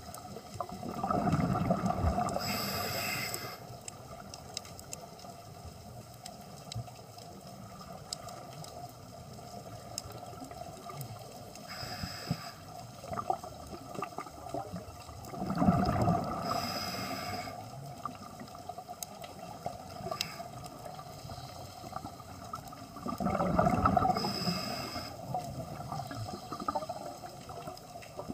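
A scuba diver's regulator breathing underwater, heard through the phone's waterproof housing: three bursts of exhaled bubbles gurgling and rumbling, each near a short hiss of inhaled air, with a further lone hiss about twelve seconds in.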